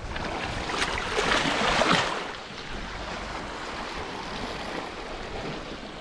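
Sea water washing and lapping at the shore, a steady rushing noise that is louder for about the first two seconds and then settles.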